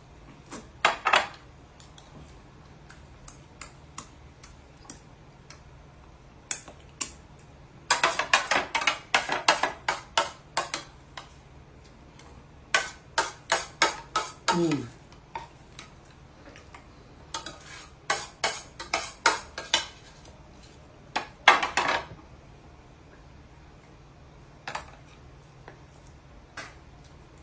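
Spoon clinking and scraping against a plate in quick runs of clicks, with pauses between the runs; a short falling squeak sounds about halfway through.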